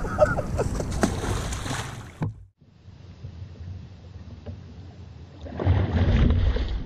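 A large blue catfish thrashing at the surface beside a kayak, water splashing, with a few sharp knocks. The sound cuts off abruptly a little over two seconds in, stays quieter, then the splashing comes back louder near the end.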